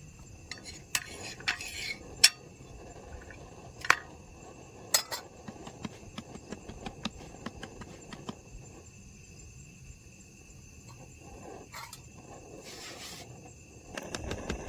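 Metal utensils clinking and knocking against a hot iron tava while bhakri flatbread cooks: several sharp clinks, the loudest about two seconds in, with many lighter taps after. A steady high insect chirring runs behind.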